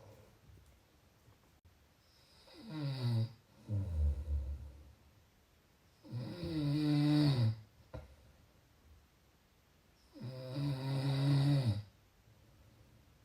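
Slow, rhythmic snoring: three loud drawn-out snores about four seconds apart, each lasting over a second, with a lower rumbling breath just after the first.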